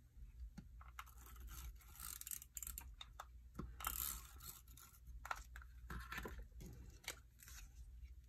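Tape glue runner (dry adhesive) drawn across paper in short strokes, a soft raspy scraping with small clicks, loudest about two and four seconds in; then paper pieces being handled and laid down.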